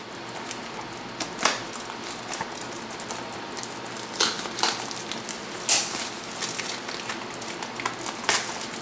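Small product packaging being handled: scattered rustles and light knocks, with a few sharper clicks spread through.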